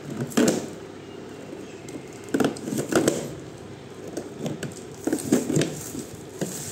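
A knife cutting plastic packing strap and tape on a cardboard box, with the cardboard and plastic crinkling and tearing in a few irregular bursts.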